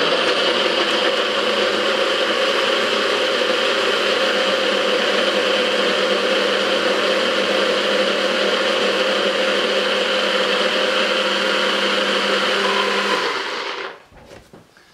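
A personal bullet-style blender runs steadily at one pitch, chopping cashews, herbs, garlic and oil into a sauce. It stops about a second and a half before the end.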